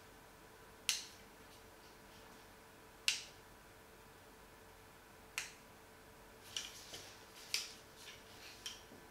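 Three sharp plastic clicks a couple of seconds apart, then a quicker run of lighter clicks and taps, from handling a Feelworld F6 Plus camera field monitor and its mounting arm. The monitor is switched on during them.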